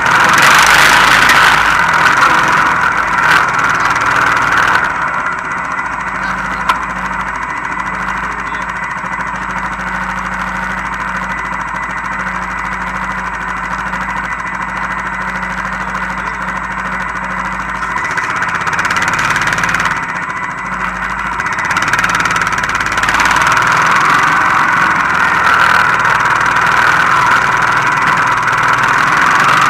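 Honda Foreman 450 ES ATV's single-cylinder four-stroke engine running while towing sleds on snow. It settles to a lower, quieter running about five seconds in and picks up again a little after twenty seconds.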